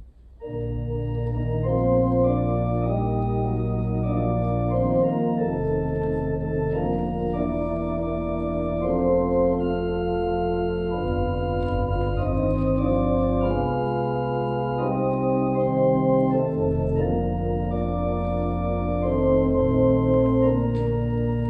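Church organ playing a postlude: full sustained chords over a low pedal bass that moves to a new note every few seconds, starting about half a second in.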